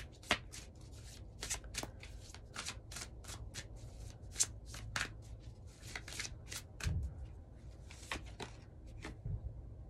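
Oracle cards being shuffled by hand: a run of quick, sharp card snaps, about three a second, that stops shortly before the end.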